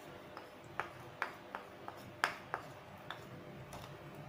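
A spoon clinking and tapping against a bowl while spooning tomato sauce into a sauce mixture: about eight light, irregular clinks, the loudest a little past two seconds in.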